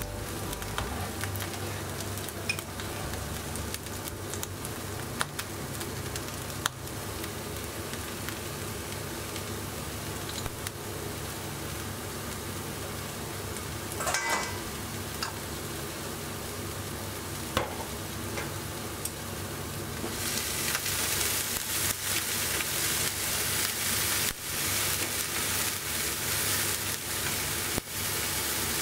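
Food sizzling in a hot frying pan while it is stirred, with a few sharp clicks of a utensil against the pan. The sizzle turns louder and hissier about two-thirds of the way through.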